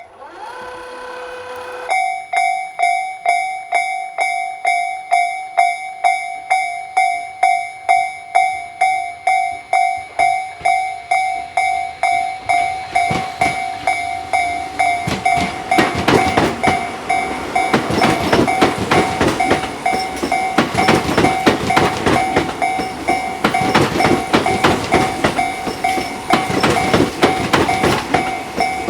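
Japanese level-crossing electronic warning bell ringing at about two strokes a second. From about halfway through, a Tobu Isesaki Line electric train approaches and passes under the bell, its wheels clattering over the rail joints.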